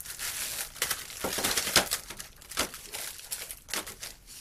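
Hands rummaging through small plastic electrical parts: a crinkling rustle with scattered sharp clicks as pieces knock together.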